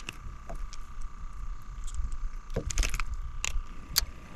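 Scattered light clicks and handling noises as a small crappie is unhooked by hand, over a faint steady hum and low wind rumble.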